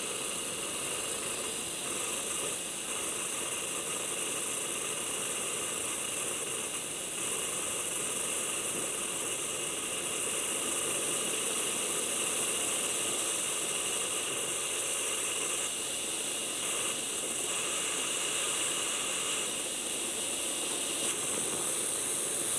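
Steady hiss of steam escaping from the lid of an Instant Pot electric pressure cooker around its float valve as it comes up to pressure.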